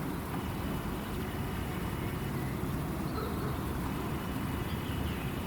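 Steady low outdoor rumble by a river, with a few faint bird chirps now and then.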